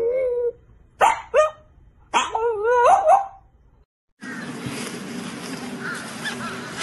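French bulldog howling: a held howl tails off half a second in, then two short sharp yelps and a wavering howl that rises and falls for about a second. After a brief silence, a steady outdoor background noise takes over.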